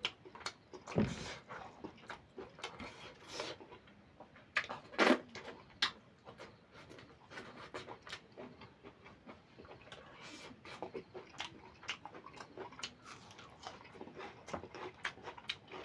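Close-miked eating: a person chewing goat liver curry with rice, with wet mouth smacks and many small irregular clicks.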